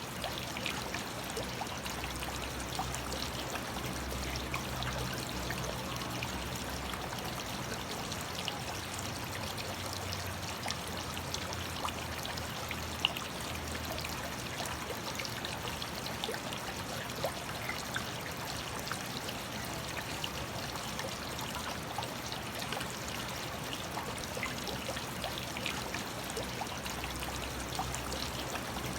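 Steady trickling, splashing water of an aquarium's circulation, with tiny droplet ticks scattered through it and a faint low hum underneath.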